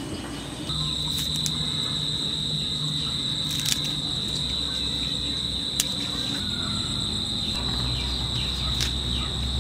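A steady, high-pitched insect trill that starts about a second in and holds an unbroken tone, over a low background rumble, with a few sharp clicks.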